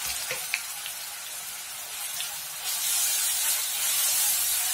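Crushed shallots, garlic and dried red chillies sizzling in hot coconut oil in a cast-iron wok as they are stirred with a spoon. The sizzle grows louder about two and a half seconds in.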